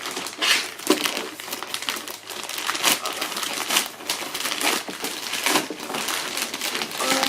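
A black shipping package being handled and pulled open by hand, its wrapping crinkling and rustling in irregular bursts as she struggles to get it open.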